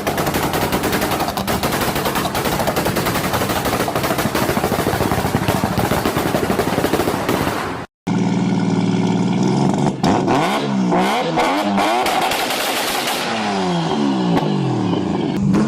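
Tuned turbocharged car's exhaust crackling with a rapid stream of pops for about eight seconds, then, after a cut, an engine revved up and down several times in quick blips.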